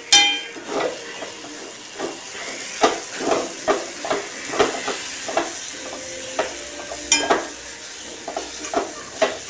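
Steel spoon scraping and clinking against a small steel kadai as banana and grated coconut are stirred in ghee, in irregular strokes about two a second, a few ringing briefly. A steady frying hiss runs underneath.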